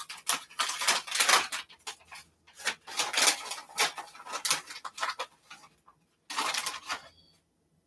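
Plastic pouch of almond flour crinkling and rustling in irregular bursts as it is handled and a measuring scoop dips into it, stopping shortly before the end.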